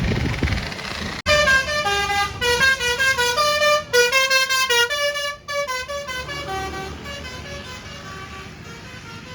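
Tour bus's Basuri telolet horn playing a quick melody of changing notes. It starts suddenly about a second in, after a low engine rumble, and turns softer and fades after about five seconds.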